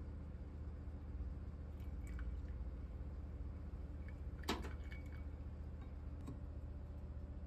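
Coffee trickling in a thin stream from a stovetop moka pot into a metal tumbler, with one sharp light knock about halfway through.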